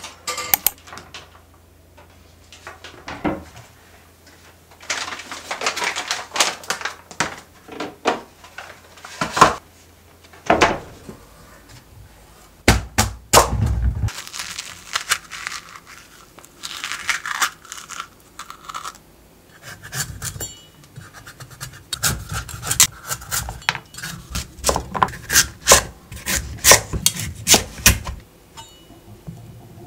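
Kitchen knife cutting a kabocha squash on a cutting board. There are stretches of scraping and rubbing, heavy thuds about halfway through as the blade goes through the hard squash, and near the end a quick run of knife knocks on the board as it is sliced into wedges.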